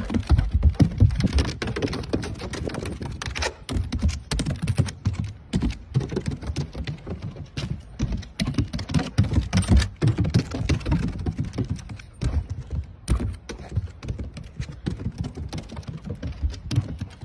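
Dense, irregular patter of knocks and thumps from a dog's paws running over hollow modular pump-track ramps, over a steady low rumble.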